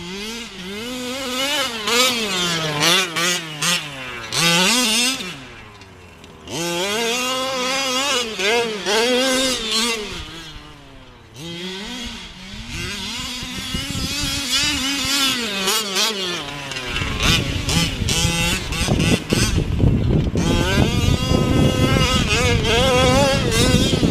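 Losi 5ive-T large-scale RC truck's small two-stroke petrol engine revving up and down over and over, the pitch rising and falling with the throttle and dropping back twice. From about 17 seconds in, a loud low rushing noise covers it.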